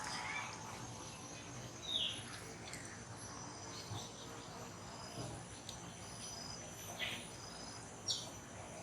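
Steady high-pitched trilling of insects, with a few short bird chirps breaking in now and then.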